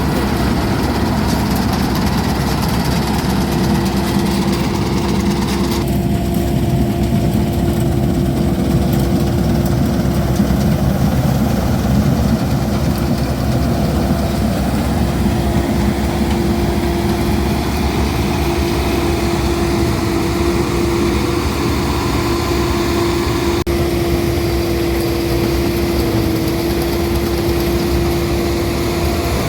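Laverda Fiatagri 3790 combine harvester running steadily at work: a loud, constant machine drone with a steady tone over it.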